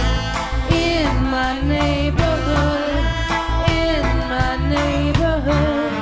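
Rocksteady band playing live: a pulsing bass line and drums under a held, gliding melodic lead line.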